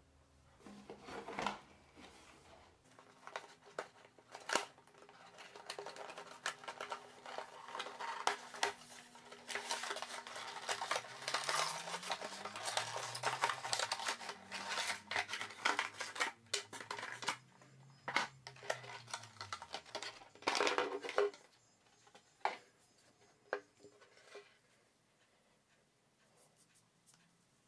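Packaging being handled and opened: irregular clicks, scrapes and rustles of cardboard and plastic, densest in the middle and dying away a few seconds before the end.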